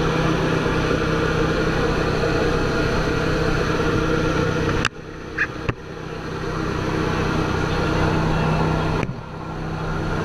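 Steady drone of a jump plane's engines and propellers heard from inside the cabin. About halfway and again near the end the sound drops away suddenly and then swells back over a second or so.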